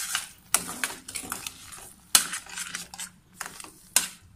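A metal spoon clinking and scraping against a steel pan as sugar is stirred into thick apple purée, in a string of irregular sharp strokes.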